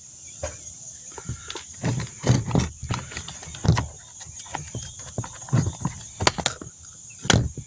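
Heavy breathing close to the microphone, in irregular puffs, with a few sharp plastic clicks near the end as parts of a door lock actuator are worked loose by hand.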